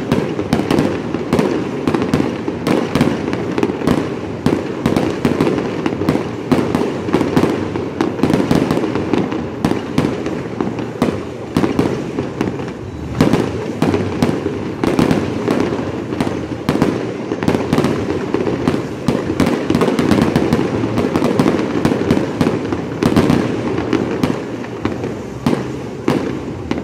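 Fireworks going off in a dense, unbroken barrage: bangs and crackling bursts follow one another several times a second.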